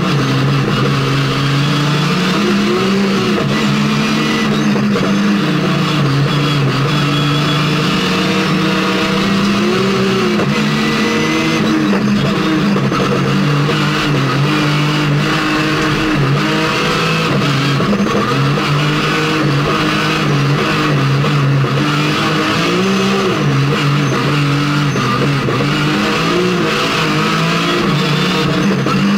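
BMW E30 rally car's S50 straight-six engine under hard driving, heard from inside the cabin. The engine pitch climbs and drops over and over as it is worked up through the gears and falls back for corners.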